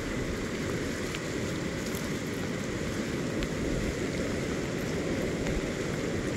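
Steady rush of the South Fork American River in major flood, with floodwater running fast close by and rain falling on the wet ground.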